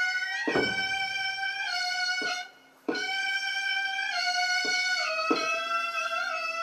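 Gagaku komagaku music: a reed pipe, most likely the hichiriki, plays long held notes that slide in pitch, with a short break for breath about two and a half seconds in. Drum strokes fall roughly every two and a half seconds, with lighter strokes between.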